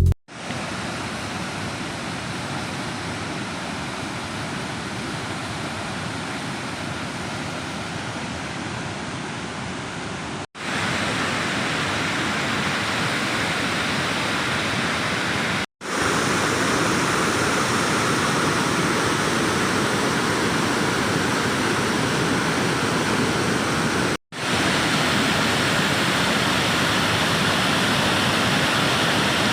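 Waterfall's rushing water, a steady roar of falling water, broken three times by brief dropouts where the clips are cut, and a little louder after the first.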